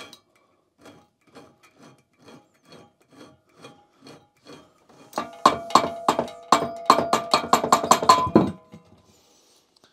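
Metal file rasping across the end of a British Seagull outboard's propeller shaft to take off a burr. Light strokes come about two a second at first. About five seconds in they turn faster and louder, about four a second, and the metal rings with each stroke, then they stop.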